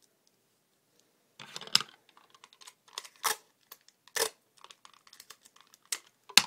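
Clear Scotch tape being pulled off its roll and torn: a series of short crackling rips and clicks that start about a second and a half in, with the loudest near the end.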